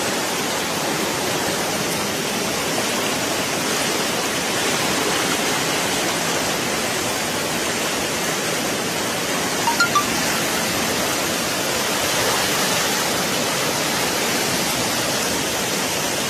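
Steady rushing of muddy floodwater, an even, unbroken wash of noise, with a few brief ticks about ten seconds in.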